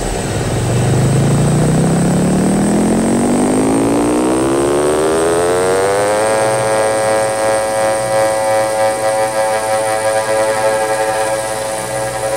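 Electronic synth riser: a buzzy tone full of overtones climbs steadily in pitch for about six seconds, then stops rising abruptly and holds one pitch, pulsing unevenly in loudness.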